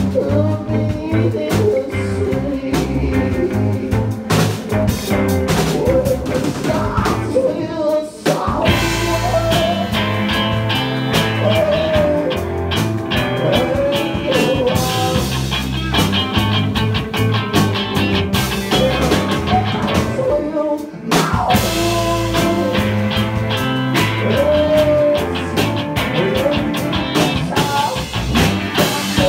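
Live rock band playing: electric guitar, bass, drum kit and keyboard, with a singer's voice over them. The music drops away briefly twice, about eight and twenty-one seconds in.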